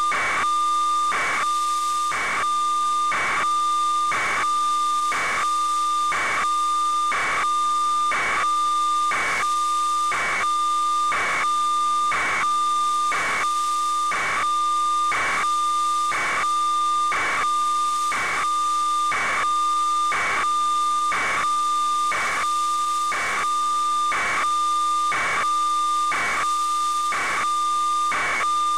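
FM-demodulated telemetry from an iMet radiosonde, received by an RTL-SDR: a steady warbling data tone with short bursts repeating at an even pace, over radio hiss.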